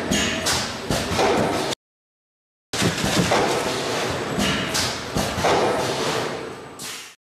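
Thermoforming and stacking machinery running, a dense clatter with irregular sharp knocks as formed plastic lids are stacked and conveyed. The sound cuts out completely for about a second, two seconds in, then returns and stops abruptly just before the end.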